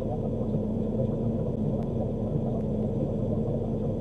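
A stopped vehicle's engine idling, heard from inside the cab as a steady low rumble with an even hum.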